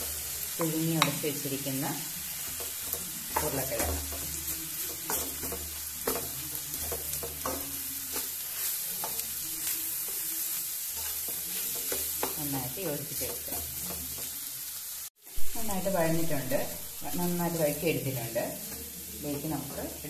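A spatula stirring and scraping potato-onion masala around a black kadai, the strokes coming irregularly over a light frying sizzle. There is a brief gap about fifteen seconds in.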